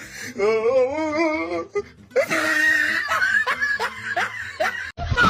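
Laughter: a wavering, shaking laugh, then a loud shrill squeal a couple of seconds in, followed by short yelping calls and a sudden burst near the end.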